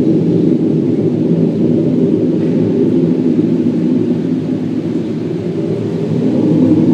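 Unexplained "strange sound" from the sky: a loud, steady low drone of several deep tones sounding together, swelling slightly near the end. It is not the sound of a passing airplane.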